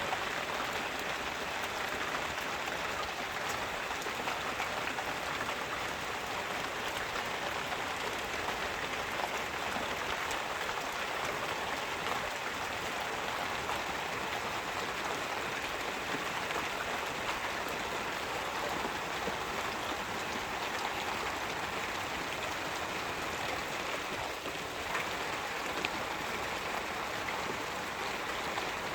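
Steady rain falling, a continuous hiss of drops with fine patters on hard surfaces.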